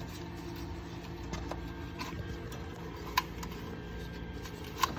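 Steady low hum of a second furnace running, with two sharp clicks, about three seconds in and near the end, from hand work on the relay box's wiring.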